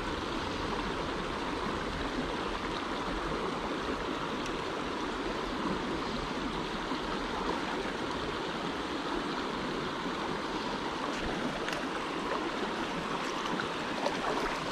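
Mountain creek water flowing steadily over rocks, a constant rush with a few faint clicks near the end.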